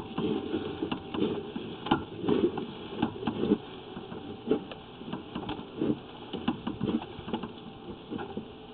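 Sewer inspection camera being pushed down a sewer lateral: irregular clicks and knocks from the push cable and camera head, denser in the first few seconds and sparser after.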